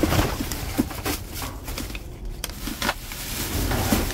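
Rummaging through trash in a dumpster: irregular rustles and short knocks of boxes and debris being shifted, over a steady low rumble.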